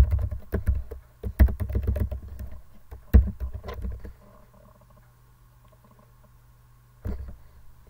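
Computer keyboard typing: a quick run of keystrokes for about four seconds, then a faint steady low hum with one more click about seven seconds in.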